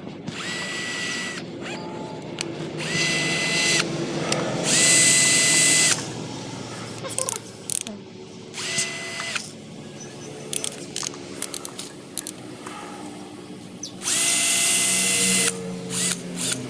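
Bosch GSR 120-Li 12 V cordless drill driver spinning up unloaded in about five short bursts of a steady whine. A scatter of sharp mechanical clicks falls between the runs.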